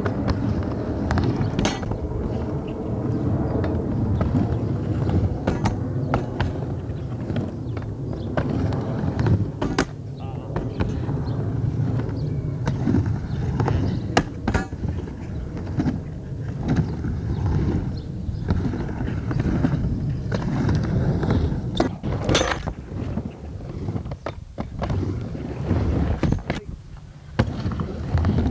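Skateboard wheels rolling on a wooden ramp, a continuous low rumble broken by sharp clacks and knocks of the board and trucks hitting the ramp and its coping.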